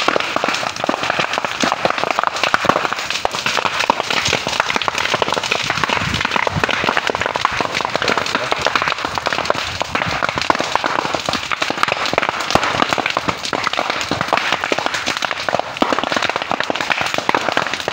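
Fire burning through bamboo, a dense, continuous crackling with many sharp pops like firecrackers.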